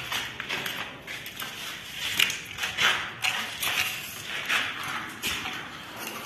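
Irregular light knocks and scraping rustles of handling, a few a second, with no steady sound under them.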